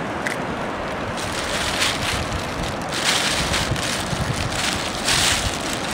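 Wind buffeting the microphone over steady ocean surf. Several short bursts of crackly rustling come from a plastic bag being handled as kelp strands go into it.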